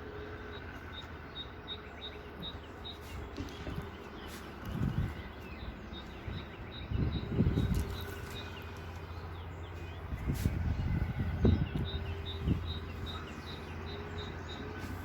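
Outdoor countryside ambience with a small bird giving a run of quick high chirps, about four a second, early on and again in the second half, over a low rumble that swells a few times.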